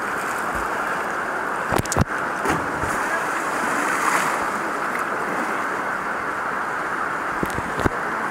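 Fast river water rushing steadily around a camera held at the surface, with splashing that grows louder and hissier about three to four seconds in, and a few sharp knocks around two seconds in and near the end.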